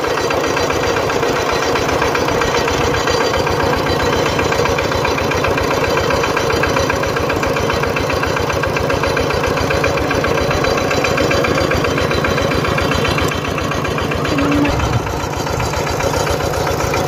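Small engine running steadily at low speed with a rapid, even chugging beat.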